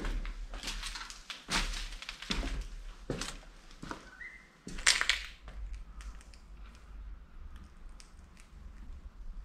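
Footsteps crunching over a debris-strewn floor, about one step a second, with a louder crunch about five seconds in and lighter, quieter steps and ticks after it.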